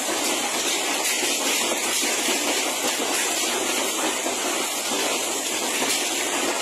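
Heavy hailstorm: hail and rain pelting down in a dense, steady din of countless small impacts.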